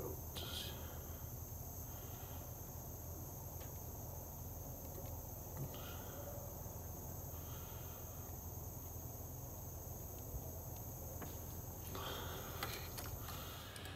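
Soldering iron held against a wire splice, with a faint steady high-pitched hiss and a few light handling clicks near the end. The iron is struggling to heat the joint in the cold.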